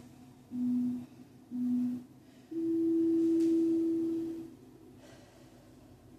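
Workout interval timer beeping: two short beeps a second apart, then a longer, higher beep lasting about two seconds, the countdown signal marking the end of one interval and the start of the next.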